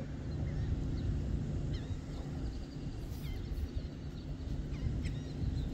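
Small birds giving short, high chirps every second or so over a steady low outdoor rumble.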